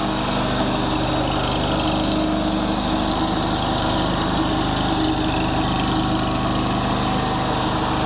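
Mini stand-on skid steer loader's small engine running steadily at working speed while the machine drives and turns on the spot.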